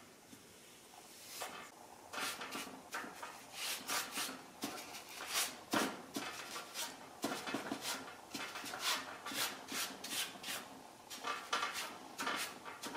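Paintbrush bristles stroking paint onto a wooden louvered shutter: a quick, irregular series of short swishing brush strokes as the paint is worked in between the louvers, starting after about a second.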